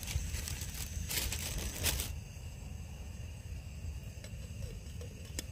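Plastic noodle packet crinkling for about two seconds, then a steady high insect drone with a couple of light clicks near the end.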